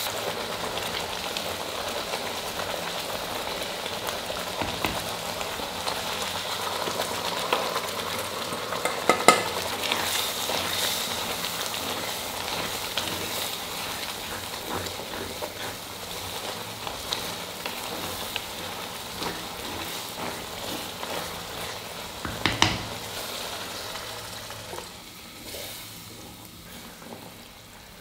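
Thick vegetable gravy sizzling and bubbling in a heavy iron pot as a spatula stirs it, with two sharp knocks, one about a third of the way in and one about three-quarters in. The sizzle fades toward the end.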